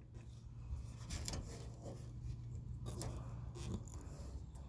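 Side-cutting pliers snipping at the protruding stub of a tire plug. There are a few scattered, faint snips and clicks over a low steady hum.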